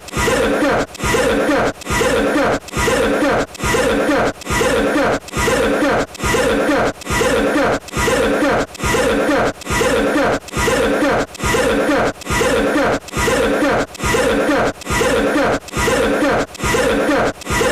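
The same short cough sound repeated over and over, about once a second, each cough identical: one recorded cough played on a loop.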